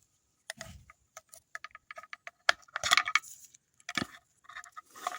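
Small metal parts clinking and rattling, a quick run of light taps with short metallic rings, as the Yamaha TW200's oil filter and its cover parts are handled during an oil change. The loudest clinks come around the middle.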